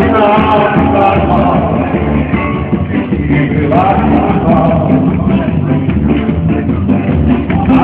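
Dance-band music with a singer: a sung melody over a full band accompaniment, the sound dull with no high treble.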